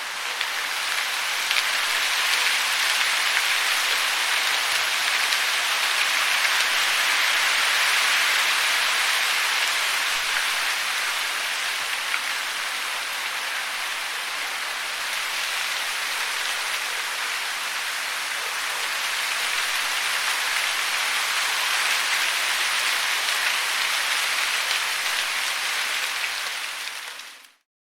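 Wind sound effect: a steady rushing hiss with little low rumble, swelling and easing slowly, that cuts off near the end.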